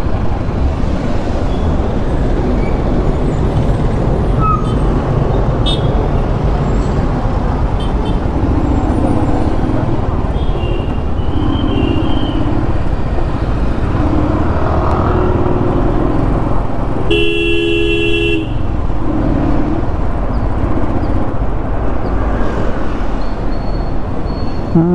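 Steady low rumble of a motorcycle engine and wind while riding in city traffic. A vehicle horn honks loudly for over a second about two-thirds of the way through, with fainter, shorter honks before and after it.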